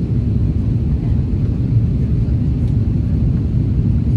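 Steady low rumble of engine and airflow noise inside the cabin of an Airbus A330-300 airliner during its descent for landing.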